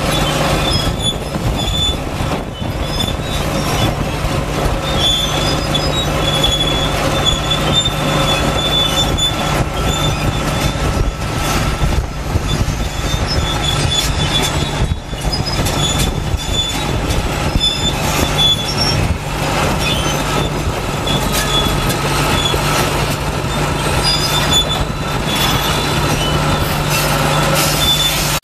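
Crawler tractor's diesel engine running steadily under load as it pulls a mole plough through the ground, with a high metallic squeal coming and going over it.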